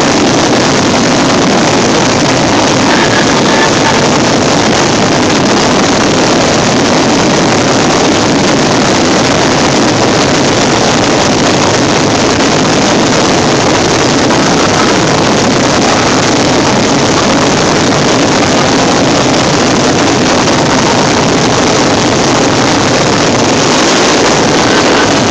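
Fireworks finale barrage: many bursts and crackles going off so close together that they merge into one steady, loud rush of noise, with no single bang standing out.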